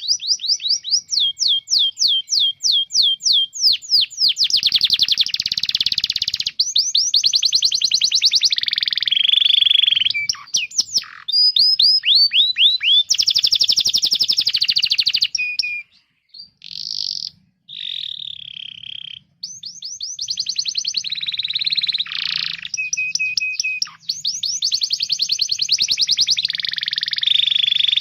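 Domestic canary singing: fast runs of rapidly repeated down-slurred chirps and trills, switching to a new phrase every second or two, with a couple of short breaks in the middle.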